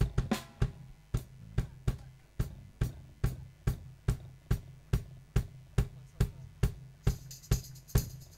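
Live rock drum kit playing a steady beat of kick and snare, about three hits a second, with cymbals coming in near the end: the drum intro to the band's next song.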